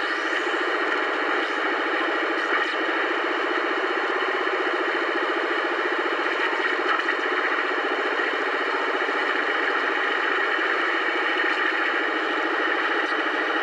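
A 27 MHz citizens band radio receiver putting out a strange, unidentified signal: a steady, rapidly pulsing buzz mixed with hiss through the radio's small speaker, of unknown origin, taken for possible interference.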